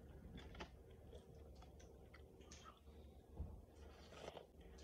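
Faint eating sounds: small wet mouth clicks while chewing vegetables, and a quiet sip of broth from a spoon near the end.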